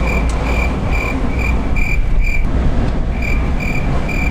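Van cabin while driving through heavy rain: steady road and engine rumble under a dense rain hiss. A high electronic beep repeats about twice a second, breaks off for under a second about two and a half seconds in, then resumes.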